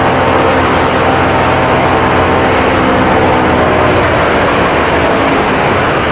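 Paramotor engine and propeller running steadily in flight, with a rush of air; the engine's tone fades near the end.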